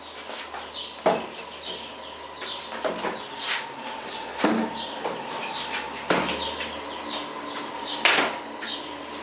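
Sandalled footsteps on a tiled floor and several sharp knocks and clunks as a heavy wooden case is lifted off a folding luggage trolley and set down. The loudest knocks come about a second in, about four and a half seconds in and near the end. Birds chirp faintly throughout.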